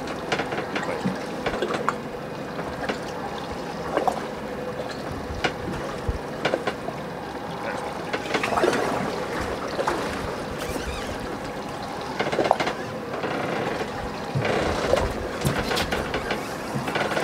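Ambient sound on a small fishing boat at sea: a steady wash of water and wind, with scattered knocks and clicks.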